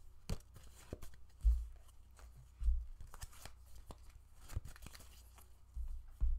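A deck of cards being shuffled and handled for a card draw: scattered light flicks and snaps, with a few dull low thumps.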